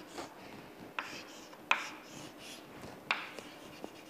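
Chalk drawing on a chalkboard: faint scratching of chalk strokes, with a few sharper taps as the chalk meets the board.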